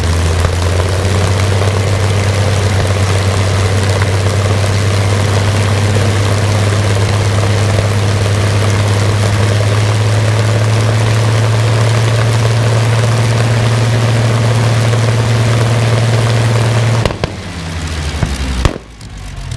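Rolls-Royce Griffon 58 V12 aero engine running steadily and loud on a test stand, driving its propeller, with a strong low drone. About 17 seconds in the sound falls away sharply as the engine is cut and the propeller slows.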